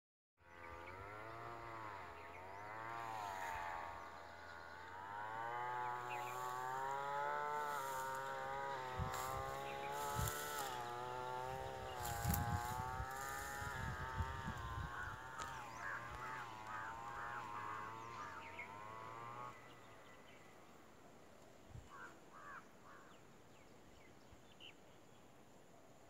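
A flying insect buzzing close by, its pitch wavering up and down, cutting off abruptly about three-quarters of the way through. A few short bird chirps and some low knocks come in around it.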